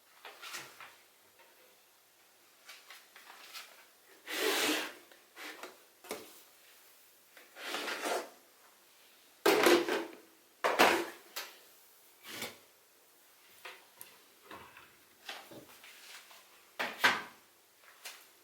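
Kitchen drawers and cupboards being slid open and knocked shut, with scrapes and clatter of things being handled. The sounds come one at a time with short pauses, the loudest knocks about ten seconds in and again near the end.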